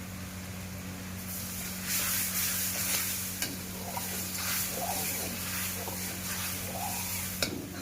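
Chicken sizzling as it is stirred in a hot pan, a spatula scraping against the metal. The sizzle swells about two seconds in, with a sharp click near the end over a steady low hum.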